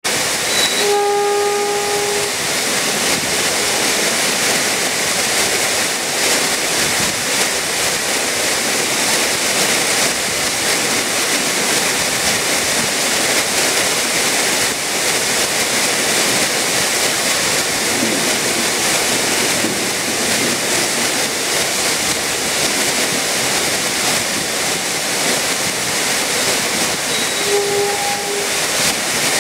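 Torrential tropical rain pouring down in a steady hiss, with the horn of the approaching ex-JR 205 series electric commuter train sounding one steady note for about a second and a half at the start and again briefly near the end.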